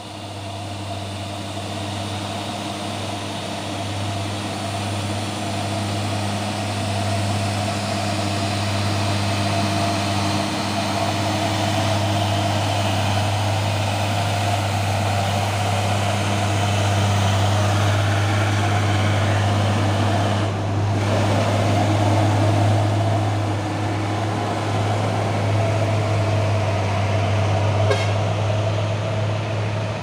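Dump truck's diesel engine pulling slowly up a steep climb, a steady low drone that grows louder as the truck draws near. The sound dips briefly about twenty seconds in.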